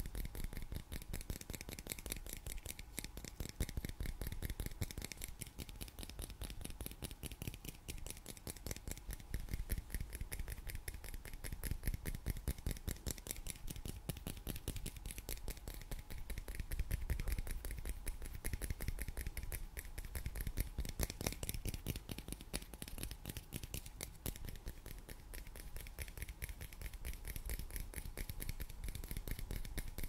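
Fingernails rapidly scratching and tapping a small hard plastic object held close to the microphone: a dense, fast run of fine ticks that goes on without a break.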